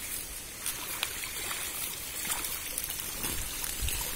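Pond water sloshing and splashing as a mesh fishing net is dragged through the shallows by people wading. Near the end, water trickles off the net as it is lifted out.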